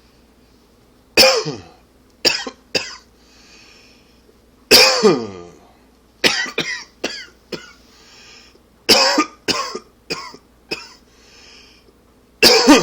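A man coughing in four fits of several coughs each, with an audible breath drawn in between fits. It is an allergy and smoker's cough, as the uploader labels it.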